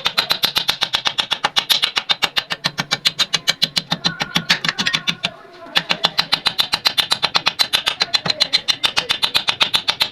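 Old sewing machine running, its mechanism clicking fast and evenly at about ten clicks a second; it stops briefly about five seconds in, then starts again.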